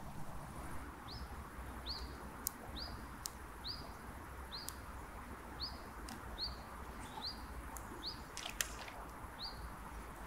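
A bird calling a short, high, up-slurred note over and over, a little more than once a second. A few sharp clicks come in between.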